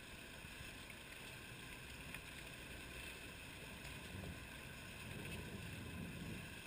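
Boat motors running faintly and steadily under a hiss of wind and water.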